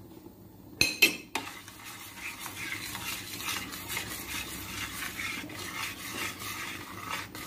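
A utensil clatters against a metal saucepan twice about a second in, then scrapes and stirs steadily through thick béchamel sauce with cubes of Emmental cheese, with small knocks against the pan.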